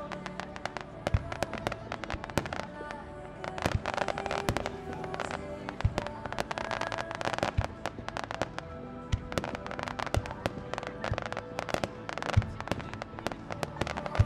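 Aerial firework shells bursting in rapid succession, several bangs a second, with the loudest burst near the end. Music plays underneath.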